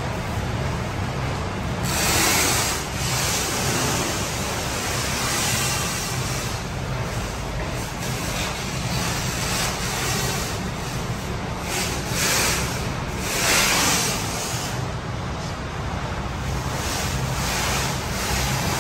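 Steady rushing background noise over a low hum, with the hiss swelling briefly a few times, most strongly about two seconds in and again near the middle.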